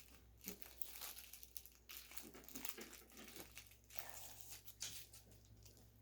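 Faint crinkling and tearing of packaging wrap, handled in irregular short rustles as it is being pulled open by hand.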